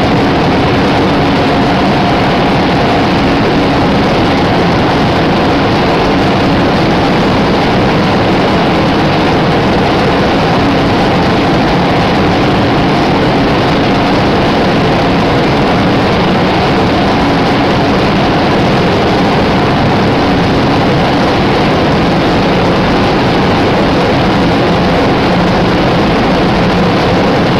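Packaging machine running: a loud, steady mechanical noise with a faint hum in it and no rhythm or change.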